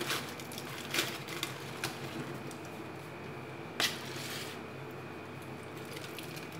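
Aluminium foil crinkling and crackling as a foil-wrapped parcel is peeled open by hand, in short scattered crackles with the sharpest one about four seconds in.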